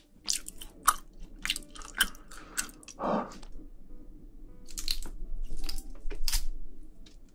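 Close-miked chewing of spicy braised seafood and bean sprouts: a quick run of sharp, crunchy clicks with a louder wet sound about three seconds in. Later come softer wet squishes as steel tongs work through the saucy seafood.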